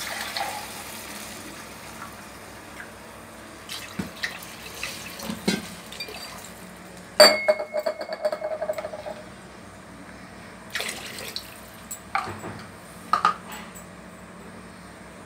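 Clinks and knocks of metal against a stainless steel cooking pot holding water and vegetables, over a low steady hum. The loudest is a sharp clank about seven seconds in that rings and rattles for about two seconds.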